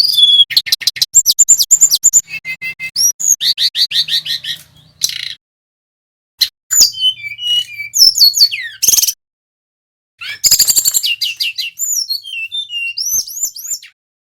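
Male brown-chested jungle flycatcher singing: quick runs of high whistled notes and rapid trills, broken by two short pauses and stopping just before the end.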